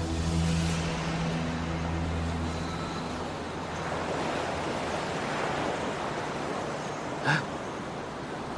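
Sea waves washing, with a steady low motor hum that fades out after about three seconds. There is one brief sharp knock near the end.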